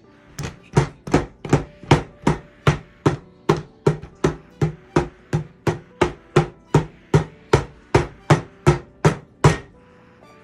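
A child's hand slapping a lump of Play-Doh flat against a wooden table, over and over in an even rhythm of about two and a half slaps a second, stopping about nine and a half seconds in.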